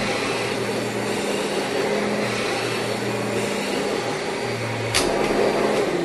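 Upright vacuum cleaner running, a steady motor drone with its head lowered to the carpet setting one notch past the pitch change, the best setting for suction. A single sharp click about five seconds in.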